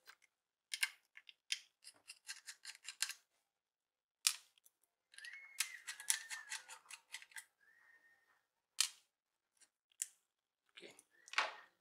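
Small screwdriver backing the screws out of a laptop hard disk's metal side holders: light metallic clicks and ticks, a quick run of them in the first few seconds and then single clicks, with a faint wavering squeal about halfway through.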